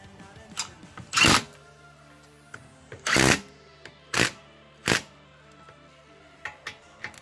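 Cordless impact wrench hammering on wheel bolts in short bursts. The two longest bursts, each under half a second, come about a second and about three seconds in, with shorter ones near four and five seconds, over background music.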